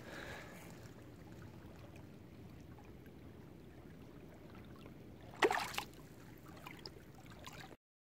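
Shallow water lapping gently around a hand releasing a flathead, with one short splash about five and a half seconds in as the fish is let go.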